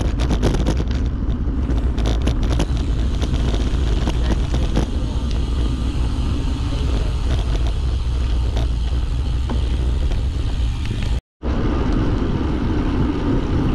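Steady wind rush and road noise on the microphone of a moving ride, heaviest in the low end, with a brief dropout to silence about eleven seconds in.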